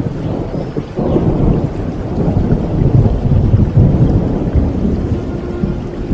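Thunder rolling over steady rain. The rumble builds about a second in, is loudest around the middle, then eases.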